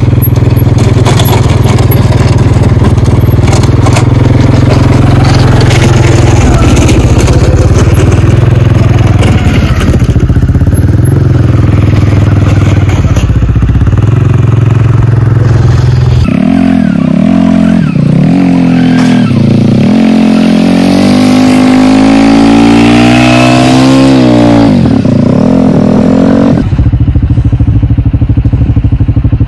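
CFMOTO CForce 450L ATV's single-cylinder engine idling steadily, then revving up and down for about ten seconds while plowing snow with its front blade. It settles back to a steady idle near the end.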